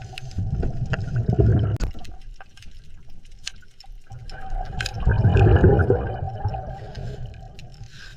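Churning, rushing water that swells twice, once about a second in and again around five seconds, over a low rumble with scattered sharp clicks.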